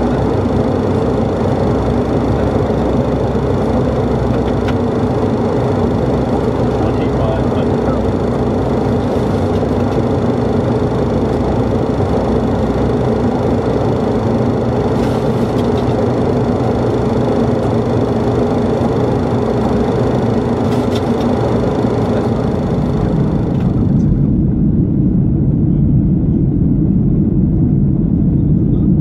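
Boeing 737 cabin noise in flight: a steady drone of engines and airflow with several steady tones over it. About 24 seconds in, the high hiss drops away abruptly and a deeper, slightly louder rumble carries on.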